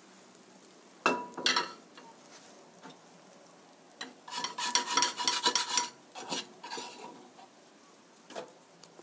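A spatula scraping and rubbing around the inside of an emptied nonstick frying pan in a dense run of strokes from about four seconds in, lasting about two seconds, followed by a few light knocks. A short clatter of cookware comes about a second in.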